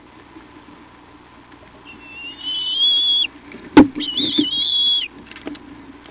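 Bald eagle at the nest giving two high, whining calls, each about a second long and slightly rising, with a single sharp knock between them that is the loudest sound.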